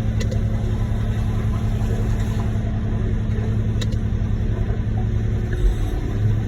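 Heavy diesel engine running with a steady drone while a concrete mixer truck loads a skid steer's bucket, with a short low swell near the end.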